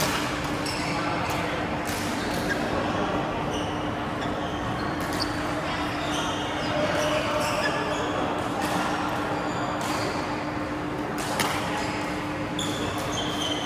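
Badminton rally: sharp racket hits on the shuttlecock every second or two, with short squeaks of shoes on the court and a steady low hum.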